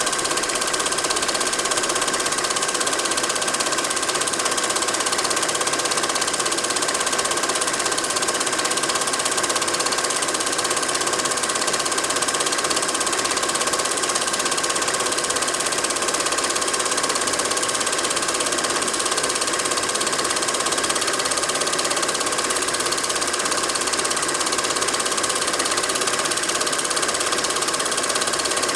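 Film projector running: a steady mechanical whirr and clatter with a constant whine.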